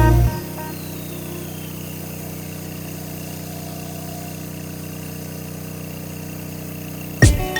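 Small gasoline engine idling steadily at an even pitch.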